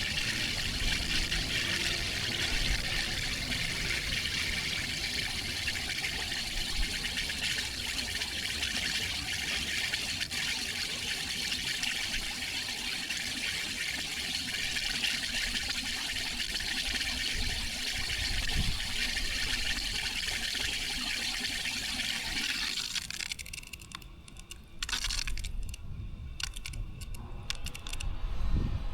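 Water from a sprinkler zone fed by newly installed irrigation valves, hissing steadily. The hiss stops about 23 seconds in, and a few short, scattered sounds follow.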